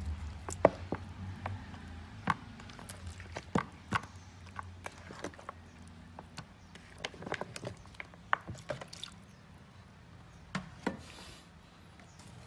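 Raw chicken feet being tossed by hand in wet batter in a plastic bowl: soft squelching with many irregular sharp clicks and knocks as the feet hit each other and the bowl.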